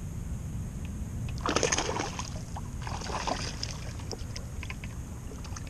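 Water splashing about a second and a half in and again around three seconds, over a steady low rumble of wind on the microphone.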